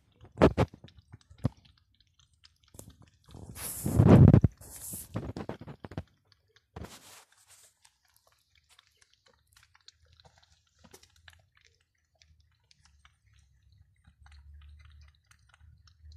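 Cats lapping and chewing wet food from a plastic tub: faint, scattered small wet clicks. In the first six seconds a few much louder knocks and a longer rumble with hiss cover it.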